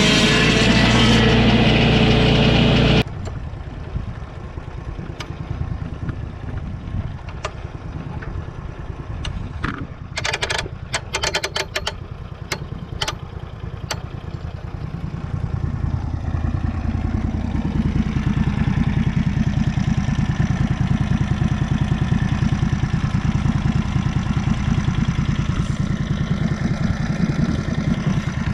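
Lucas swing-blade sawmill's petrol engine driving the blade through a blackbutt log, cutting loudly, until the cutting stops abruptly about three seconds in. The engine then runs more quietly, with a run of sharp clicks from about ten to fourteen seconds in. It grows louder again from about sixteen seconds and runs steadily.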